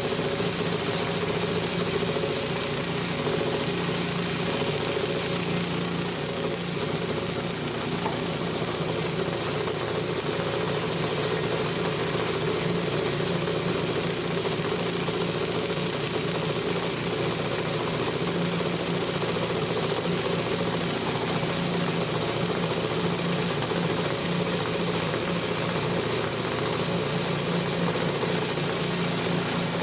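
Electric vibrating flour sieve shaker running at a steady, loud hum as it sifts home-milled wheat flour through its screens, separating the bran from the flour.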